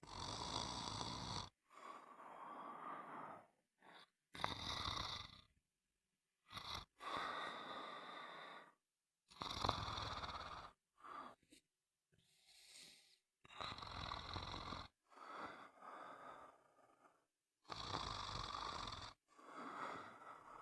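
A person snoring: a string of rasping snores, most about one to two seconds long, coming at an uneven pace with short silent gaps between them.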